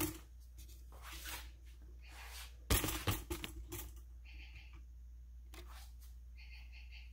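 Handling noise: a click, then rustling and a loud cluster of knocks and clicks as the recording phone is moved and set down. A few faint high squeaks follow near the end.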